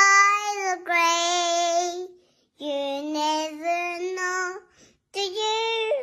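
A child's high voice singing a slow tune in long held notes, in several phrases of one to two seconds with short pauses between them.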